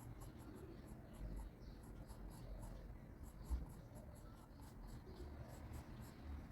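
Pencil scratching on paper in short, repeated strokes, about two or three a second, with a soft low thump about three and a half seconds in.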